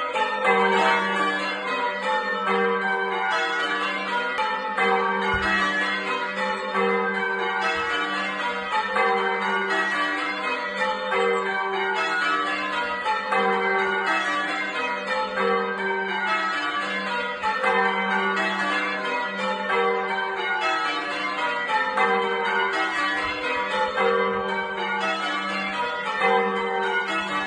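A ring of church tower bells rung in changes: the bells strike one after another in falling rows, each row about two seconds long, repeating without a break, their ringing overlapping into a steady low hum.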